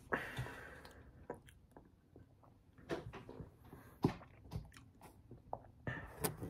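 Close-up handling noise: scattered clicks, knocks and rustles as a hand reaches to the phone that is recording, with a short noisy rush at the start and sharper knocks about four and six seconds in.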